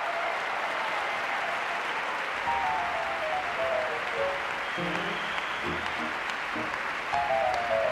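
Audience applauding steadily while music plays; about two and a half seconds in a bass line enters and a melody steps down in pitch, twice.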